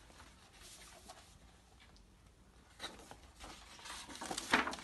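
Faint room tone, then the rustle and rub of a large picture book's paper pages being turned and handled, in short strokes from about three seconds in, the loudest near the end.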